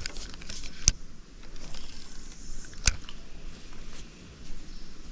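Light rustling and handling noise with two sharp knocks, about two seconds apart, the second louder.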